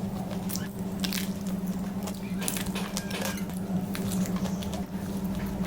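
Close-miked chewing and biting of focaccia bread: irregular soft crackles and moist mouth clicks, over a steady low hum.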